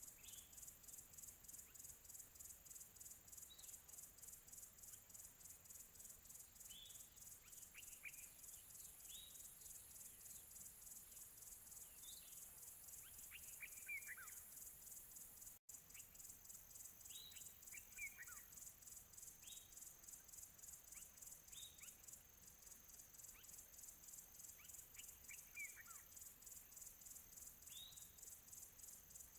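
Faint high-pitched insect trilling, cricket-like, with a fast even pulse that runs steadily, and short downward-sweeping bird chirps every second or two over it. The sound drops out for an instant about halfway through.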